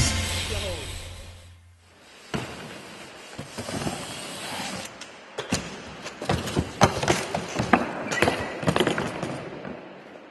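Rock music dying away, then a run of irregular sharp knocks and clatters over a low background noise, fading near the end.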